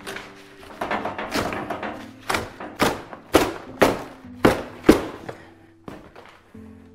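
Cardboard shipping box being torn apart by hand: rustling and crackling, then six sharp tearing strokes about half a second apart. Soft background music underneath.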